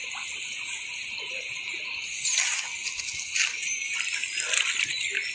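Light splashing of shallow water and rustling of bankside grass as hands work at the water's edge, with a couple of louder splashes in the middle, over a steady high hiss.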